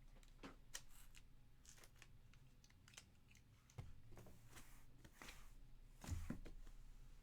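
Near silence broken by faint, irregular clicks and taps, about a dozen scattered through it.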